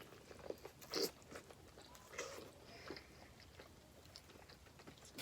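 Faint eating sounds: chewing and biting into seafood-boil food, with a few scattered clicks and crunches, the loudest about a second in.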